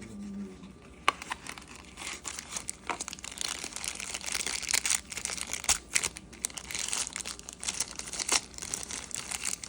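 Packaging being handled and opened: irregular crinkling, crackling and tearing with scattered sharp clicks, busiest from about two seconds in until near the end.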